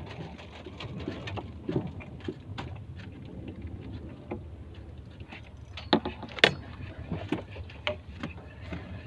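Small boat riding at rest on the sea: a steady low wash of water and wind against the hull, with scattered light knocks and clicks from the boat and fishing gear. The sharpest knock comes about six and a half seconds in.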